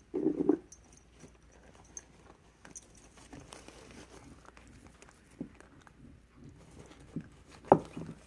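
Small dog shuffling about with a bone: scattered rustling, taps and small knocks, with a short loud burst of knocks just after the start and a sharp knock near the end.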